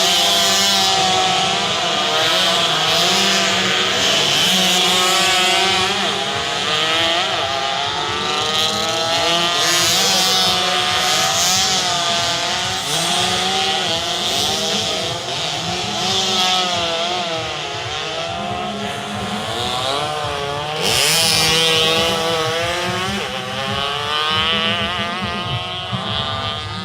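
Several racing motorcycle engines revving and running together, their pitches rising and falling against each other, with louder surges at the start and again about three-quarters of the way through.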